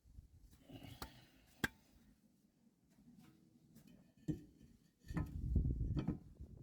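Tools and car parts being handled: a few sharp clicks and knocks, then a louder stretch of rubbing and clattering near the end.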